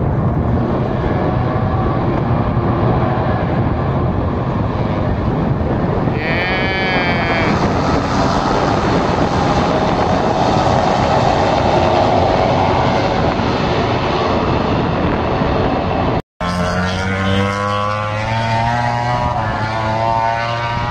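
MotoGP racing motorcycles passing trackside at high revs, with one engine's whine rising briefly about six seconds in and the loudest stretch as the pack goes by near the middle. After a sudden cut, a steady engine note slowly rising in pitch.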